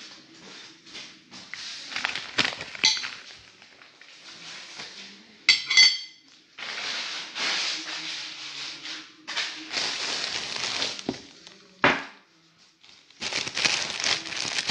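Fork and dishes clinking, with rustling and handling noise close to the microphone. A single bright ringing clink comes about halfway through, and a sharp knock follows a few seconds later.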